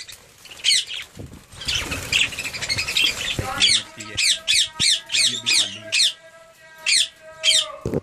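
Aviary budgerigars chattering: many short, sharp squawks that sweep down in pitch, repeated rapidly. A steady tone runs underneath from about the middle until just before the end.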